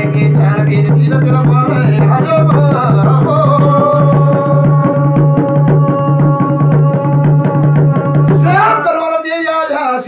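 Garhwali jagar singing: a man's voice over a small laced double-headed drum beaten in a steady rhythm, with a low boom on each beat. About a third of the way in the singer holds one long note, and voice and drum break off together about a second before the end.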